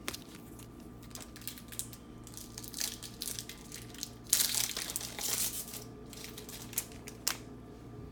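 Trading-card pack wrapper crinkling as it is torn open, with a loud burst of crinkling about halfway through and small clicks of the cards being handled.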